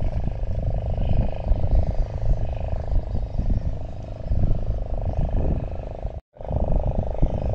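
Wind rumbling and buffeting on the microphone, uneven and loud in the lowest range. It cuts out completely for a moment about six seconds in.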